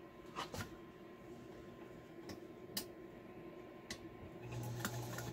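Several light clicks and knocks from hands working a stopped White 764 sewing machine and moving the fabric, the loudest nearly three seconds in, with a short low hum near the end.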